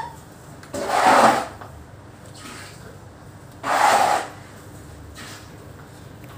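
Broom sweeping a floor: two brushing strokes, about a second in and again about four seconds in.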